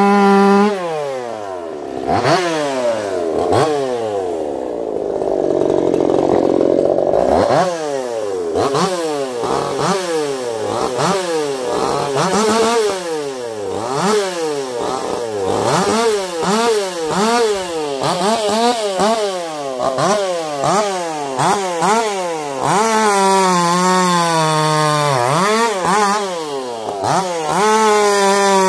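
Two-stroke Echo CS-4910 chainsaw, fitted with a taper-top piston and a swapped crankshaft, cutting wood: the revs drop as the chain bites, then rise and fall over and over, about once a second, before holding high near the end.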